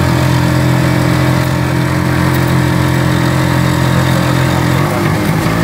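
Two-stroke engine of a 2005 Kawasaki HD-III 125 motorcycle running at a steady speed while pulling a tricycle sidecar. The engine note dips and wavers briefly about five seconds in.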